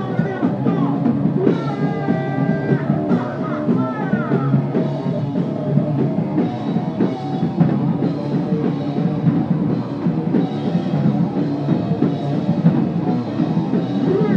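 Rock band playing live: distorted electric guitar over a driving drum kit, with a few bending lead-guitar notes about two and four seconds in.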